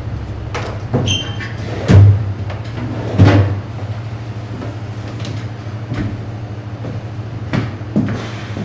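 A drawer or cabinet knocking and clunking several times as it is opened and a cloth barber's cape is taken out and handled, with a brief high ring about a second in. Under it runs a low, steady musical drone.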